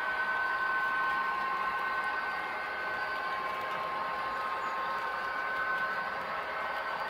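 Model Canadian Pacific SD70ACU locomotive running steadily on the layout: an even whine from its small motor and drive, with a hiss of wheels rolling on the track.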